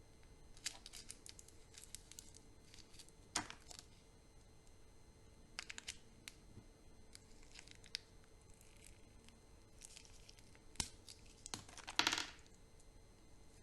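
Chocolate wrappers being handled and opened: short crinkles and rustles of wrapper material with scattered sharp clicks and taps, the loudest a longer crinkle near the end.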